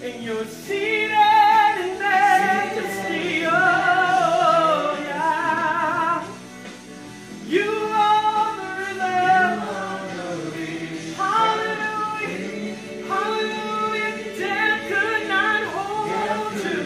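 A woman's voice singing a gospel worship song through a microphone, in long phrases with a wide, wavering vibrato and short breaks between them, over steady held tones beneath.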